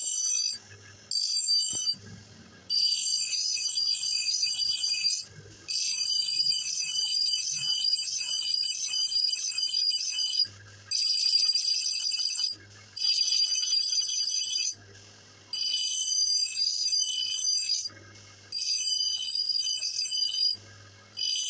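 Axe blade being sharpened against an abrasive in repeated passes: a high-pitched ringing grind lasting a second to several seconds each time, about eight passes with short pauses between them, during which a low hum is left.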